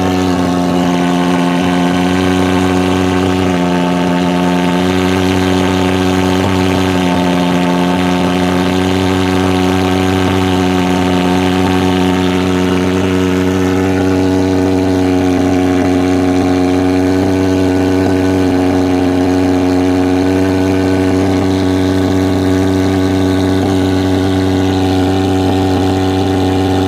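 Superfogger thermal fogging machine's pulse-jet engine running at a steady, loud buzz.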